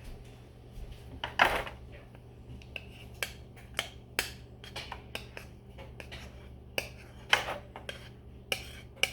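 Small beads and buttons clicking and clattering against a container as they are poured in: irregular clinks, with longer rattles about a second and a half in and again about seven seconds in.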